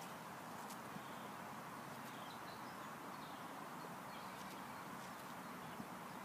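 Quiet outdoor park ambience: a faint steady hiss of open air with a few distant small birds chirping now and then.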